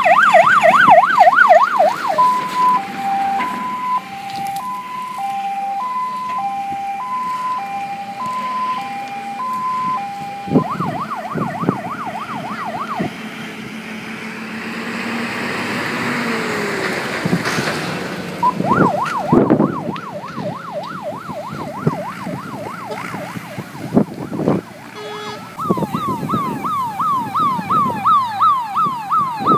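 Fire engine sirens on an emergency run. A fast yelp sweeps up and down several times a second, then switches to a two-tone hi-lo alternating about once a second, then returns to the fast yelp in several stretches.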